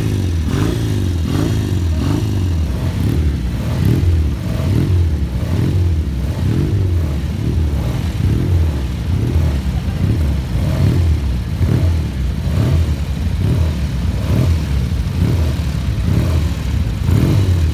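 Several vintage motorcycle engines running together, their pitch rising and falling over and over, about every two-thirds of a second, as the throttles are blipped.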